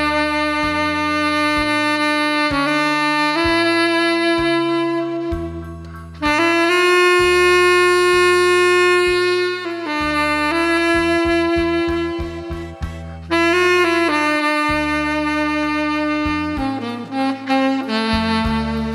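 Tenor saxophone playing a slow melody in long held notes over a backing track with a bass line.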